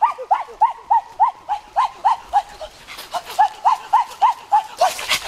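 A turkey calling in a steady series of short yelping notes, about three or four a second. Near the end, a loud crunching and rustling of dry leaves comes in.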